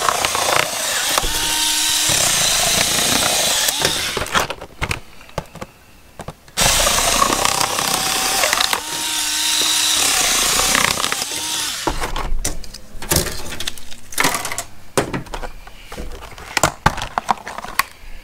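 A voltage tester's retail packaging being ripped open: two long stretches of harsh tearing and crinkling, then scattered clicks and knocks as the pieces are handled.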